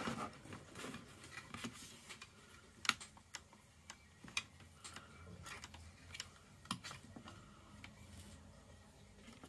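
Faint, irregular light clicks and taps of small plastic and metal parts being handled: an opened optical drive's frame and a screwdriver bit case.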